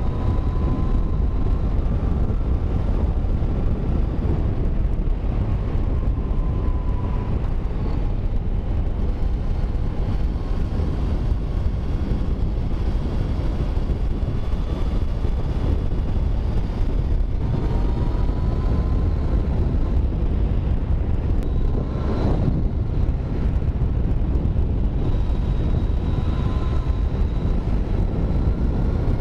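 Riding on a Yamaha MT-09's 847 cc three-cylinder engine, with heavy wind rush over the action camera's microphone covering most of the engine note. About 22 seconds in the engine note rises briefly.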